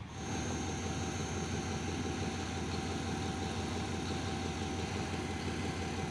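Diesel-electric locomotive engine idling steadily: a constant low drone with a thin, steady whine over it.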